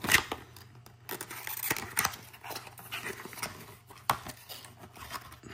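Small cardboard box being handled and opened by hand: rustling and scraping of cardboard with scattered sharp taps and clicks, the loudest right at the start and another about four seconds in.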